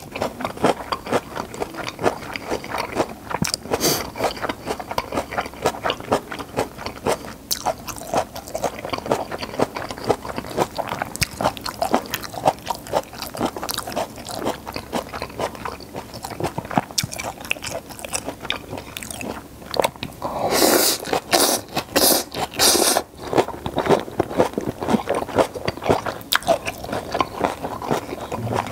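Close-miked chewing of a mouthful of gochu japchae: soft, wet mouth sounds full of small rapid clicks and smacks. About twenty-one seconds in there is a louder, hissier stretch lasting about two seconds.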